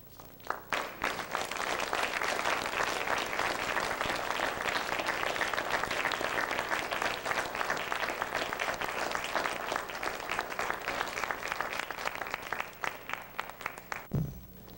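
Theatre audience applauding. The clapping starts about half a second in, holds steady, thins out near the end and stops, with a brief low thump as it dies away.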